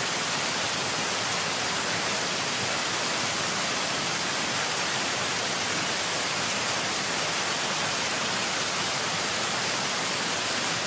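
Fast-flowing floodwater rushing: a steady, even hiss that does not change.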